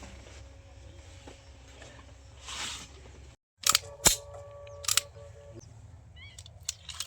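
Tokarev TT pistol firing 7.62×25mm rounds: a few sharp, loud shots in quick succession in the second half, less than a second apart, with some fainter cracks near the end.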